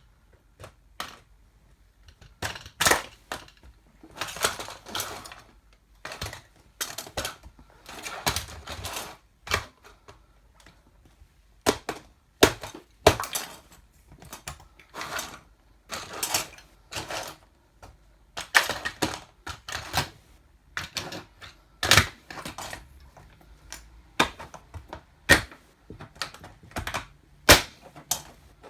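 A toy car being crushed under platform high heels: irregular sharp cracks, snaps and crunches as it breaks apart, some louder than others, with short grinding crunches in between.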